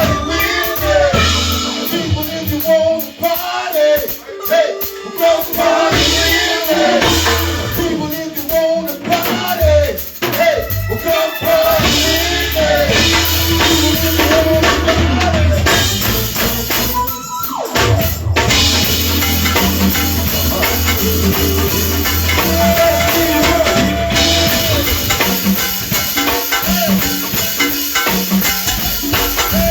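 Live band playing a song: a sung melody over bass, drum kit and percussion, with a brief break about halfway through before the band comes back in.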